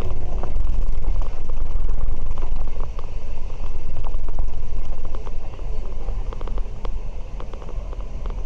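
Inside a moving bus: a steady low engine and road rumble with frequent small rattles and clicks from the bodywork and fittings.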